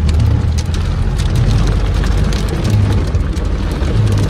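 Heavy storm rain pelting a car's windshield and roof, heard from inside the cabin as a steady patter of many small hits over a constant low rumble.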